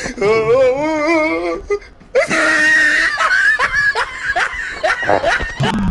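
Loud human laughter: a wavering laugh for about a second and a half, then, after a short break, high-pitched shrieking laughter.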